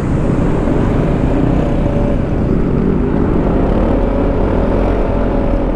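Yamaha XMAX 300 maxi-scooter's single-cylinder engine running steadily while riding, heard onboard with wind and road rumble on the microphone.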